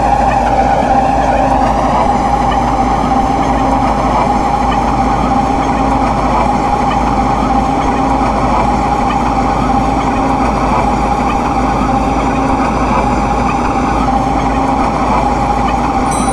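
MTR M-Train electric multiple unit under way, a steady traction-motor whine over wheel and track rumble. The whine's higher tones climb over the first couple of seconds and then hold level as the train settles to running speed.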